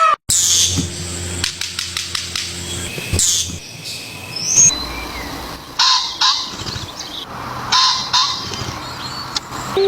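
Bird calls: several short, separate calls over a noisy background.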